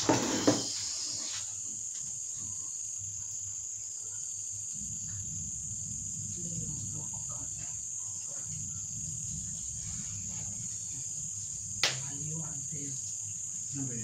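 A steady high-pitched buzz, with a couple of sharp knocks right at the start and a single sharp click about twelve seconds in. A faint low murmur runs under it from about five seconds on.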